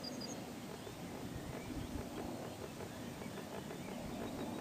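Faint steady drone of a distant RC model plane's motor held in a hover, under a low rumble of wind. A bird chirps briefly right at the start.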